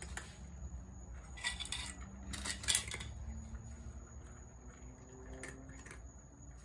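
Cat eating dry kibble from a metal tray: kibble clinks and scrapes against the metal with crunching, in a few short clusters, loudest about two and a half seconds in.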